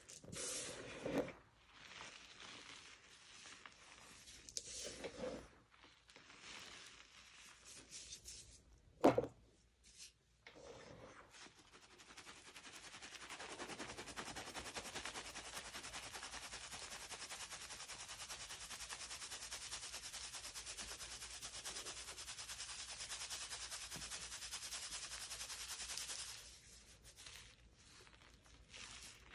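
Hands crushing dyed pasted gym chalk in loose chalk powder: soft crumbly crunches with one sharp crack about nine seconds in. Then a steady hiss of chalk powder sifting through a shaken metal mesh strainer for about thirteen seconds, stopping near the end, followed by light rattling of the chalk crumbs.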